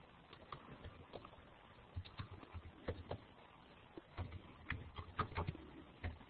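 Faint, irregular clicks and taps in small clusters, over a low hiss.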